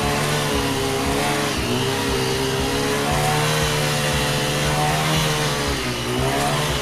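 Small gasoline engine of a one-man post hole auger running hard as it bores into the soil, its pitch wavering up and down under load.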